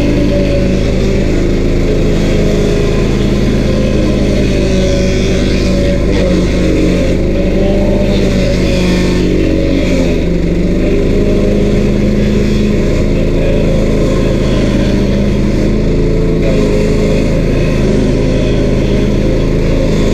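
A stump grinder's 13 HP Honda engine running steadily at high throttle, with brief hissy patches near the middle.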